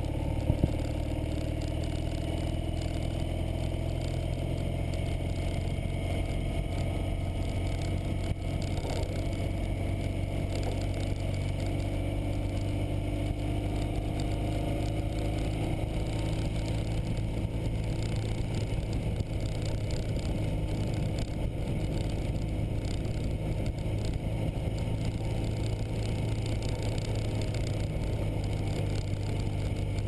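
2009 Ural Patrol sidecar motorcycle's air-cooled boxer twin running steadily while riding on a snowy road, its engine note easing down a little over the first several seconds.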